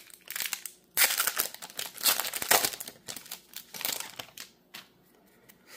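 Foil wrapper of a Magic: The Gathering collector booster pack being torn open and crinkled by hand as the cards are pulled out, in several crackly bursts that die away about a second before the end.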